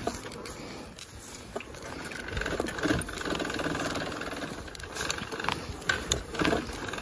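Dirt bike's single-cylinder engine running at low revs while riding down a rough trail, getting louder about two and a half seconds in, with a few short knocks from the bike over ruts and roots.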